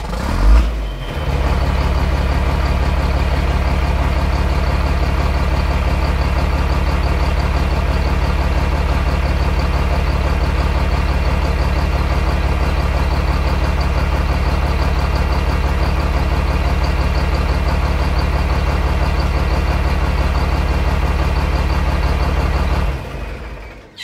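Heavy vehicle engine running steadily at one constant speed, with a deep low hum. It starts with a brief loud burst about half a second in and fades out near the end.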